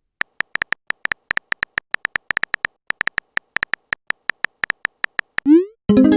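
Typing sound effect of a chat app: short, sharp keypress clicks, several a second at an uneven pace. Near the end comes a short rising whoosh, the sound of a message being sent.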